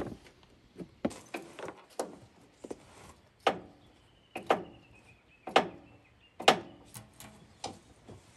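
Hammer blows on metal, about one a second, each sharp strike ringing briefly, as parts of a seized forklift drum brake are knocked loose.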